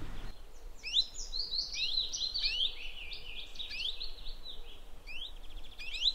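Birdsong: a chorus of small birds chirping, many short rising notes overlapping without a break.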